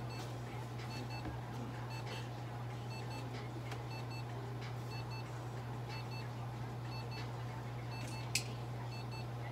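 Light-therapy unit giving a short double beep about once a second while the treatment runs, over a steady low electrical hum. A sharp click about eight seconds in.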